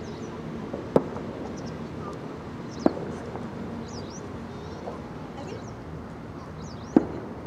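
Small birds chirping again and again over a steady low hum, broken by three sharp knocks about one, three and seven seconds in.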